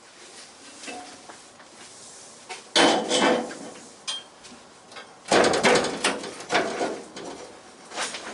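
Metal clanking and knocking as a classic Mini's front subframe is worked loose and eased down from the body shell, in irregular clusters with the loudest about three and five seconds in.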